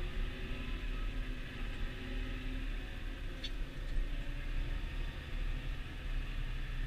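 Massey Ferguson 6480 tractor's six-cylinder diesel engine running steadily under way, a low rumble, with a short tick about halfway through.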